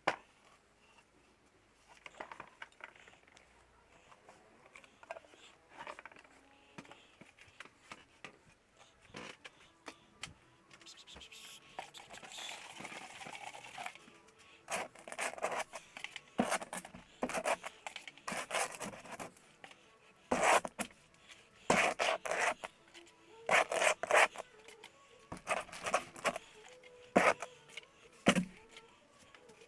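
Wet acrylic paint being scraped across a canvas in short, rough strokes, sparse at first, with a few seconds of hiss about halfway through, then coming quick and loud in the second half.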